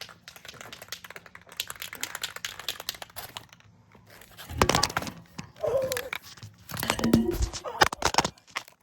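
Crinkling and tearing handling noise: a run of quick light clicks, then louder crinkling and rustling in the second half.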